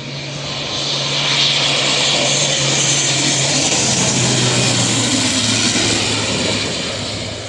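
Airplane passing low overhead on its landing approach: a loud engine noise swells, holds, then fades, with a steady low hum that drops a little in pitch as the plane goes by.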